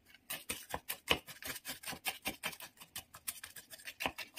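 Wooden spoon stirring and mashing crushed Oreo cookies soaked in milk in a ceramic bowl: quick, irregular clicks and scrapes of the spoon against the bowl and the wet crumbs, several a second.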